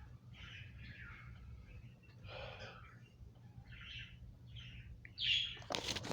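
A bird chirping in short, repeated calls, with a louder, harsher burst near the end.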